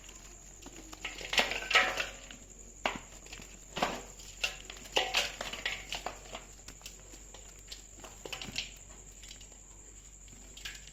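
Dried brown mud shapes being crushed and crumbled by hand: a string of irregular crunches, loudest between one and two seconds in.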